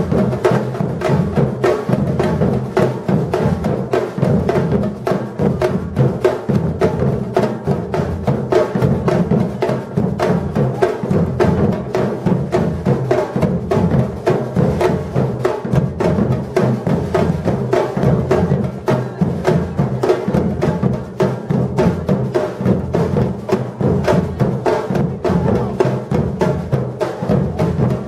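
Batucada drum ensemble playing a steady, dense rhythm: deep bass drums under a constant patter of sharp snare and hand-percussion strokes.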